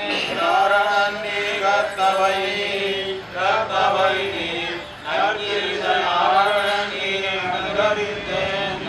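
A group of men chanting a devotional recitation in unison, in long held tones broken into phrases by short pauses.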